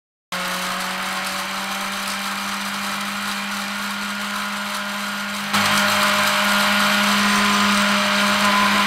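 Electric blender motor running steadily with a constant hum, growing louder and harsher about five and a half seconds in as it works through dark crumbly contents.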